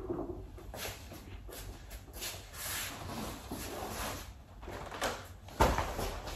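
Household handling noise: scattered light knocks and rustles, then a sudden thud and scraping about five and a half seconds in as a large folding foam play mat is pulled upright and handled.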